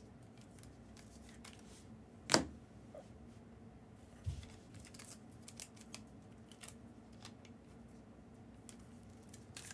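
Trading cards being handled on a table: faint scattered ticks and slides, with one sharp snap about two seconds in and a soft thud about four seconds in.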